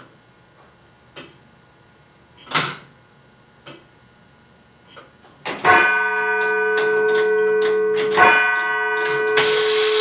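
Tower clock movement ticking about once a second and a quarter, then a tower bell struck twice about two and a half seconds apart, each stroke ringing on in a long hum amid clicks of the striking gear. Near the end a loud, steady whirring noise from the mechanism sets in over the ringing bell.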